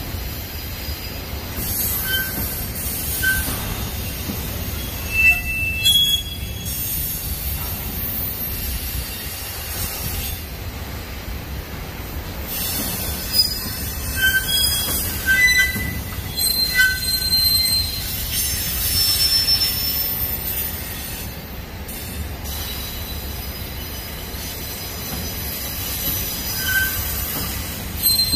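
Union Pacific double-stack intermodal train's container-laden well cars rolling past with a steady rumble, the wheels giving short high-pitched squeals off and on.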